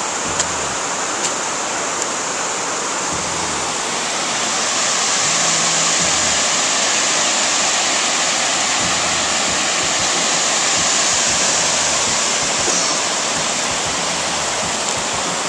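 Steady rush of a wide waterfall pouring over a broad rock ledge into a river, a constant hiss of falling water loud enough to drown out voices.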